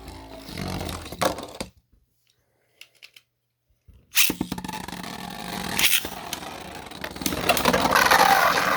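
Beyblade spinning tops scraping and clattering in a plastic stadium, cut off abruptly for about two seconds. They start again with a sharp click, then rattle and grind with a hard hit in the middle, growing denser near the end.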